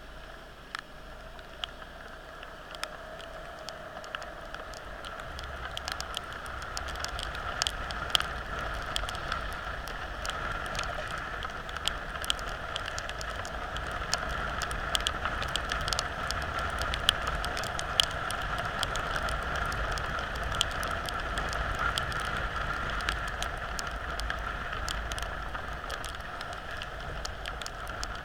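Heavy rain, with many sharp drops ticking close to the microphone, over the steady rush and whine of travelling along a road. The rush and whine grow louder over the first half, then hold steady.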